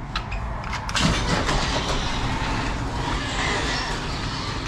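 Motorised overhead garage door set running from its wall push-button control: a couple of faint clicks, then about a second in a steady mechanical rattle and hum of the door and its drive.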